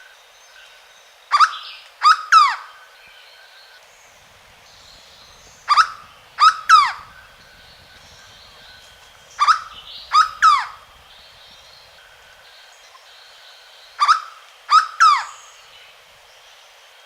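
Hooded berryeater (corocoxó) calling: four loud phrases, each of three or four quick notes that fall sharply in pitch, repeated about every four seconds.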